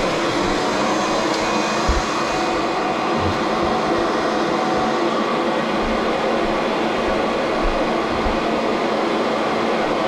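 Vacuum cleaner running steadily, with a few brief low bumps.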